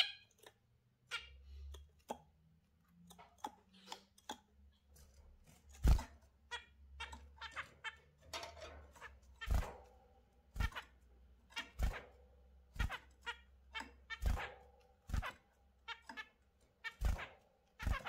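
Caged zebra finches and budgerigars making short sharp chirps and calls, about one a second, mixed with light taps. A loud squeak right at the start.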